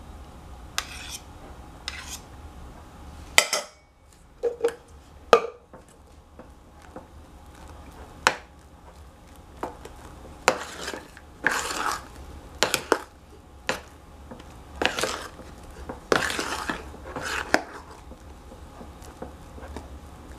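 Metal spoon stirring a thick chocolate mixture in a stainless steel saucepan: irregular clinks and longer scrapes against the pan's sides and bottom, busier in the second half.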